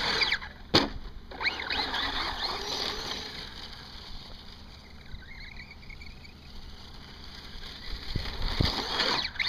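Electric Team Associated SC10 4x4 RC short-course truck: a sharp knock about a second in as it hits the ground tumbling off a jump, then its motor whining up and down in pitch as it speeds off over rough ground, fainter in the middle and louder again near the end.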